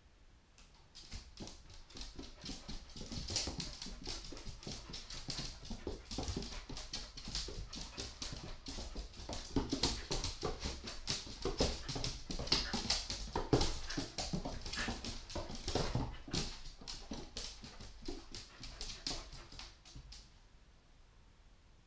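A Welsh sheepdog's claws clicking in quick, uneven runs on a hard laminate floor as she trots and weaves around a person's legs. The clicking starts about a second in and dies away shortly before the end.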